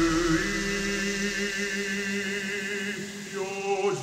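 Film score of wordless, chant-like choir voices holding long notes. A further layer of voices comes in near the end.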